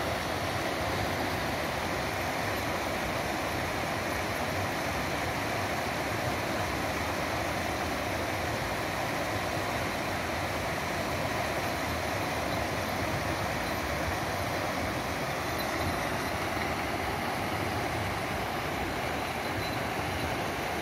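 Mountain stream rushing over rocks and small falls, a steady, even rush of water with no breaks.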